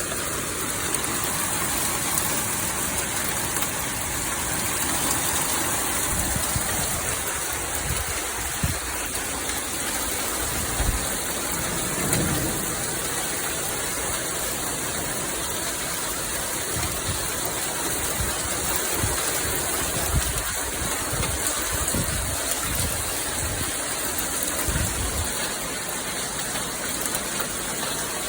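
Steady rain falling, an even hiss throughout, with brief low bumps underneath now and then.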